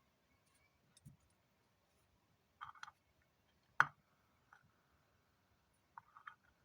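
A few short, sharp clicks and taps at uneven intervals, the loudest a single crisp click a little before the four-second mark.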